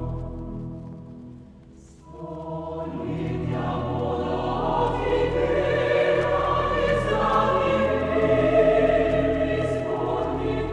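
Choir singing a Christmas song. A phrase dies away about a second and a half in, then the next phrase starts softly about two seconds in and swells.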